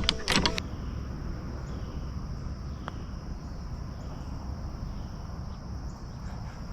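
Insects, likely crickets, droning steadily in one high band over a low rumble of wind, with a single faint click about three seconds in.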